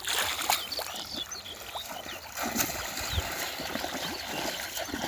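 Water swishing and splashing around the legs of people wading through shallow water.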